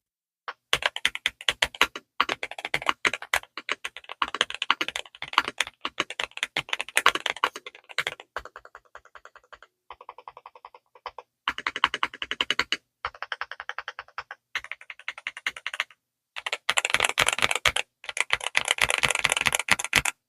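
Typing on a mechanical keyboard fitted with Frankenswitches made from WS Morandi switches with Kailh Turbo Silver stems, a sound called deep and thocky. The keys go in fast bursts of clacks, sparser and quieter in the middle, then fast again near the end.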